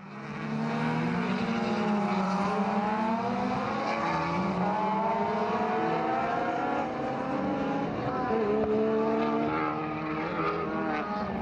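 Several race car engines running together at high revs, their pitch climbing and dropping back again and again as the cars accelerate through the gears.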